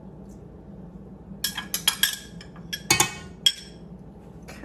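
A few bright clinks with a short ring: a quick cluster about a second and a half in, then two sharper single clinks around three seconds and three and a half seconds.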